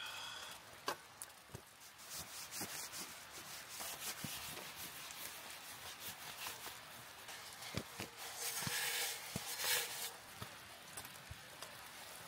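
Rustling of tent fabric and camping gear being handled and packed away, with scattered light clicks and knocks and a louder stretch of rustling near the end.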